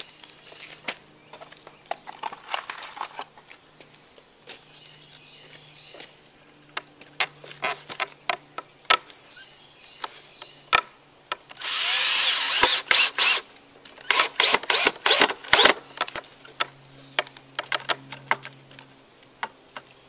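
Red cordless drill driving a screw into a pine 2x4, running continuously for about two seconds near the middle, then in a string of short quick bursts as the screw is seated. Light knocks and clicks of handling the board before it.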